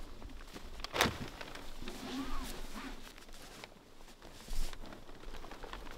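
Footsteps crunching in snow and the rustle of tent fabric and straps as a hard-shell rooftop tent is pulled closed by hand, with a sharp knock about a second in.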